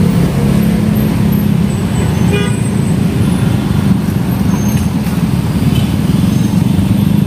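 Steady road-traffic noise of many motorcycles and a few cars passing, with a short horn toot about two and a half seconds in.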